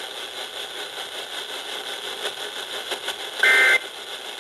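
Weather radio receiver static hiss from a weak signal, then about three and a half seconds in a short loud burst of two alternating data tones: the first of the Emergency Alert System (SAME) end-of-message bursts that close a NOAA Weather Radio warning.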